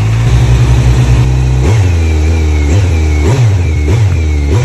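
Kawasaki Z900's inline-four engine running through an Akrapovic carbon silencer. It idles steadily, then from about a second and a half in gets about five quick throttle blips, each rev rising and dropping back to idle.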